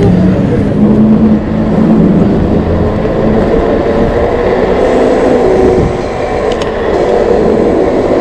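Riding noise from a Super73 Z1 electric bike: wind buffeting the action camera's microphone and road noise, with a wavering hum from the bike's motor.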